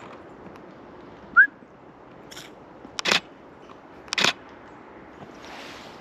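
Canon Rebel T7i DSLR shutter firing single frames: a faint click, then two sharper clicks about three and four seconds in. About a second in comes a single short rising chirp, the loudest sound.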